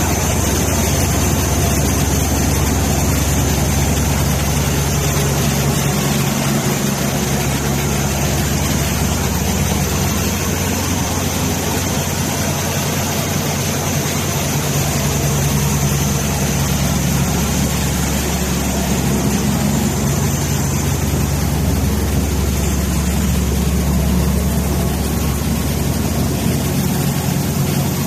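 Cummins diesel engine of a 260 hp portable air compressor running steadily at constant speed on test, a low engine hum with a thin high whine above it.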